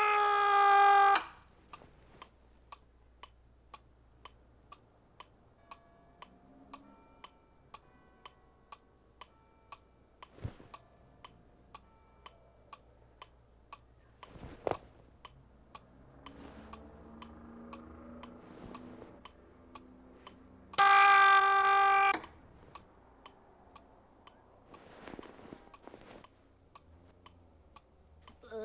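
An operatic soprano voice singing from a TV cuts off about a second in as the set is switched off, leaving a clock ticking steadily about twice a second, with a couple of soft knocks. About two-thirds of the way through, a one-second burst of the same operatic singing breaks in, then the ticking carries on.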